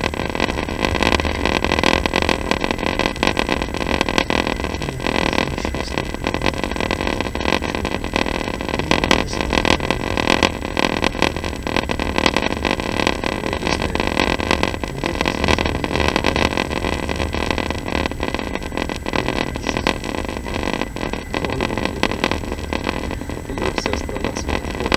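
Passenger train running, heard from inside the carriage: a steady rumble and running noise without a break.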